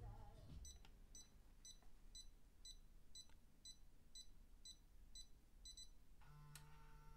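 Faint, high electronic beeps from a Kenwood KRC-856RL car radio, repeating about twice a second for several seconds. Near the end the motor of its motorised front mask starts with a click and runs with a steady hum.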